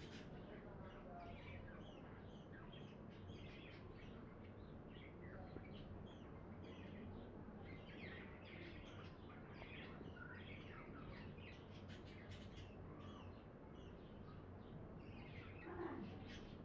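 Flock of small birds chirping in many short, overlapping chirps, faint over a low steady hum. A lower, louder call starts near the end.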